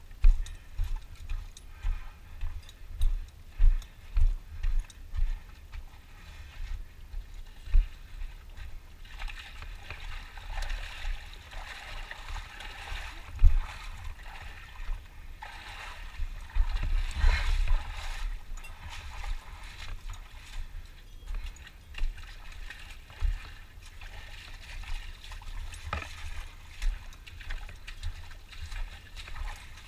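Hikers' footsteps on a dirt and gravel canyon floor, with repeated low thuds, then wading through shallow muddy water with sloshing and splashing from about ten seconds in until about twenty seconds in.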